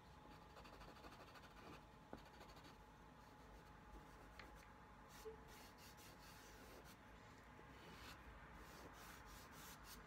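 Faint, irregular scratching of a dry pastel stick stroked back and forth across paper.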